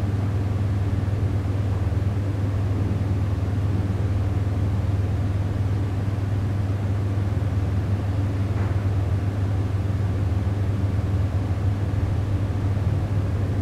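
Steady low background hum with no speech, unchanging throughout.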